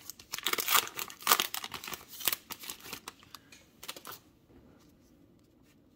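Plastic wrapper of a Topps Heritage baseball card pack crinkling and crackling as it is torn open by hand. It stops about four seconds in.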